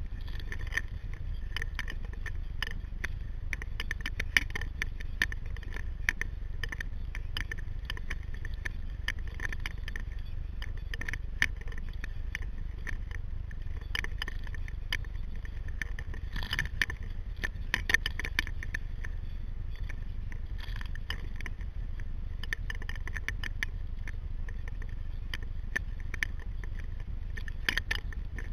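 Water splashing and dripping around a paddled sea kayak: many small, irregular sharp clicks and crackles over a steady low rumble, with a few louder splashes about two-thirds of the way through.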